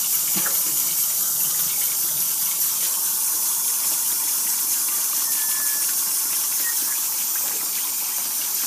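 Kitchen tap running steadily into a stainless-steel sink, the stream splashing onto the sink floor around the drain.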